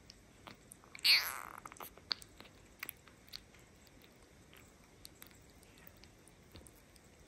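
Tiny kitten suckling milk from a feeding bottle: soft, scattered wet smacks and clicks of its mouth on the teat. About a second in there is one short, louder noisy sound that falls in pitch.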